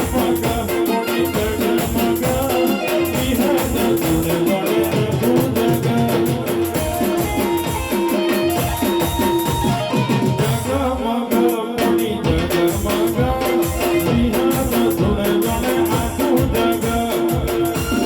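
Instrumental interlude of a live Gujarati devotional song: melody instruments playing over a fast, steady drum beat, with no lyrics sung.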